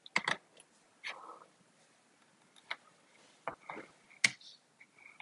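Irregular clicks and taps of handling as a case is pulled off an iPhone, with one sharper click about four seconds in.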